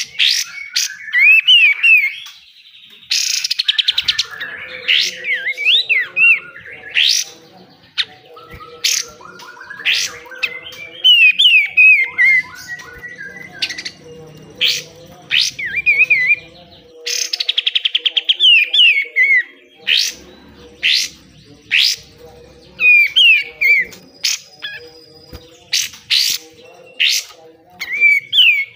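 A kapas tembak songbird singing loudly and continuously in a fast, chattering stream of short slurred whistles and sharp snapping notes. Harsh buzzing rattles come about three seconds in and again around seventeen seconds, the rough 'besetan' phrases this bird is kept for. A faint steady hum lies underneath.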